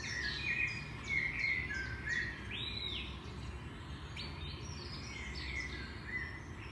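Small birds chirping: quick runs of short high notes, with one clearer arched note near the middle. A steady low rumble runs underneath.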